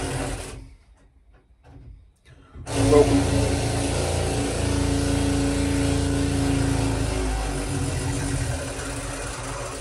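An engine starts up suddenly about three seconds in and runs steadily with a low hum and a steady mid-pitched tone, easing off a little near the end.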